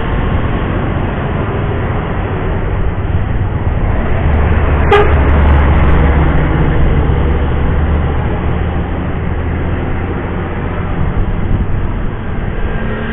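Road traffic at a hairpin bend: a large diesel bus rumbles past close by, louder for a few seconds in the middle, and a horn gives one short toot about five seconds in. Motorcycles run by around it.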